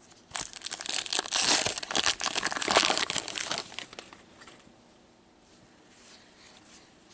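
Crinkly plastic card-pack wrapping handled and crumpled by hand for about three seconds, then a few faint rustles.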